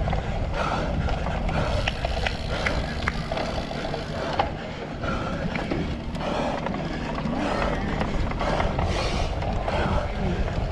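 A cyclocross bike being ridden hard over rough ground: a steady rush of wind on the microphone with the chain and frame rattling and a few sharp clicks.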